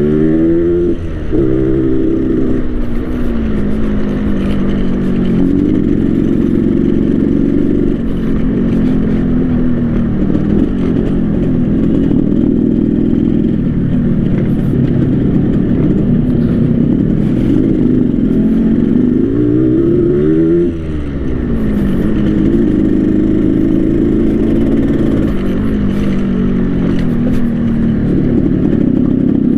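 Yamaha RX-King two-stroke single-cylinder motorcycle running through an aftermarket 'ngorok' (snoring) split exhaust while being ridden. The engine pitch climbs and falls through throttle and gear changes, with a quick rev about a second in and another around twenty seconds in.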